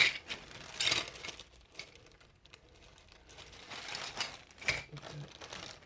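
Small hard plastic toy parts being handled: a run of clicks and taps, the sharpest at the start and about a second in, with plastic bag rustling later.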